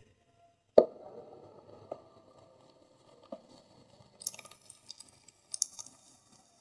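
A thin block of gym chalk snapped in two by hand with one sharp crack about a second in, then a couple of softer cracks. Later, dry crumbling bursts as chalk pieces are crushed to powder between the fingers.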